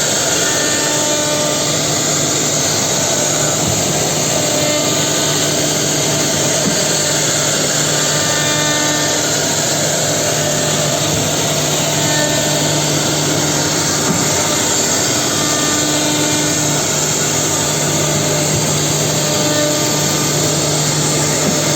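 Holztek HT-R4M four-spindle CNC router milling concave chair seats into wood, running steadily with a constant spindle whine and cutting noise.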